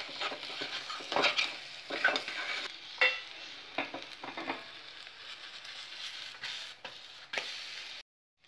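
A spatula scraping and turning an egg omelette in a small metal pan of hot groundnut oil, over a steady sizzle. The scraping strokes come several times in the first half; after that the sizzle carries on with a few light knocks, and the sound cuts off just before the end.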